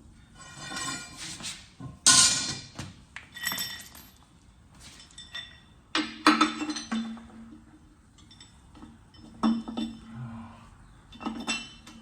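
Metal tools and wheel hardware clanking and clinking during a tractor tire change: a handful of sharp metal strikes, each ringing briefly, with lighter clinks between them.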